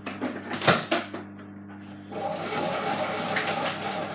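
Samsung WW80J5555FWEU washing machine humming steadily; after a sharp click, water starts rushing through it about two seconds in, the machine working through a suds lock caused by too much powder.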